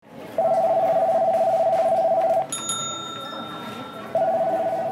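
Electronic telephone ringing: a loud warbling two-tone trill lasting about two seconds, then starting again about four seconds in. Between the two rings a bright chime sounds with several high ringing tones that fade out.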